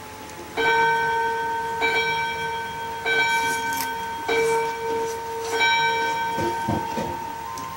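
A spring-wound striking wall clock (bonbon clock) chiming five times, about a second and a quarter apart, each strike ringing on into the next.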